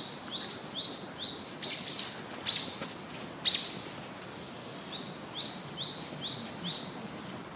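A series of short, high-pitched rising chirps, about two a second, with a few louder ones in the middle and then a second run near the end.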